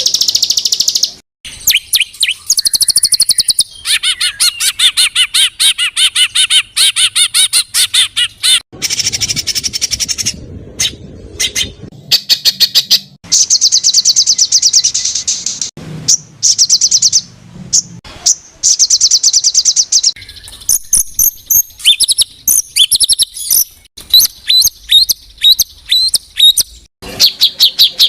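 Edited compilation of cage songbird song: loud, rapid trills and fast-repeated high chattering phrases that start and stop abruptly, with a run of separate whistled notes near the end.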